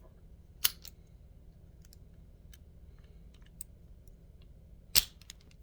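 Small metal clicks and ticks from handling lock picks and a padlock, with two sharper, louder clicks, one about half a second in and one near the end.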